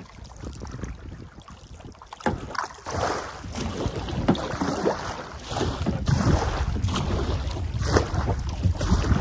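Water splashing and sloshing around a canoe being paddled upriver, with wind rumbling on the microphone. It gets louder about three seconds in.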